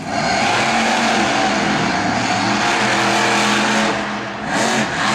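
Bigfoot monster truck's 1,500-horsepower engine running hard through a race run, its pitch shifting as the throttle is worked. It eases off about four seconds in and picks up again near the end.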